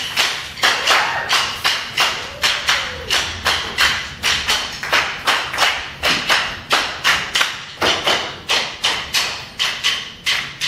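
A stage percussion troupe keeping a steady beat of sharp percussive hits and thuds, about two to three a second.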